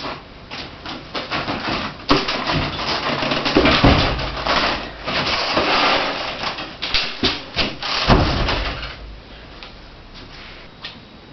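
Handling noise: rustling and scraping with many short clicks and knocks, and heavy thumps about four and eight seconds in. It quietens after about nine seconds.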